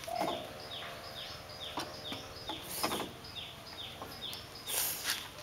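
A small animal calling steadily in short falling chirps, about two a second, with a couple of brief rustling noises in between.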